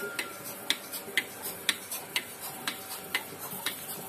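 Milking machine pulsator clicking in a steady rhythm, about two sharp clicks a second with fainter ticks between, as it switches the teat cups between vacuum and air while a cow is milked.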